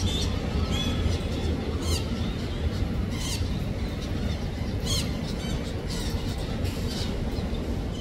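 Parakeets giving short, shrill calls, roughly one a second, over a steady low rumble.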